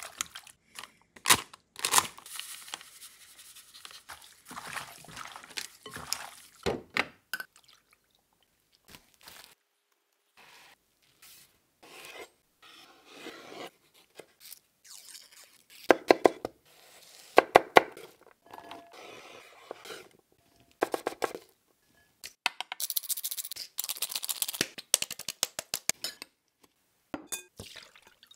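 A series of close-up food-prep sounds, short and separate with silent breaks: raw squid handled wet in a glass bowl and strainer, and a knife slicing tomato on a wooden cutting board with sharp knocks.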